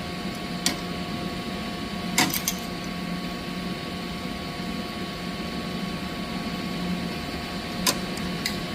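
Steady mechanical hum from running boiler-room equipment, with a few sharp clicks or taps about a second in, a couple of seconds in and near the end.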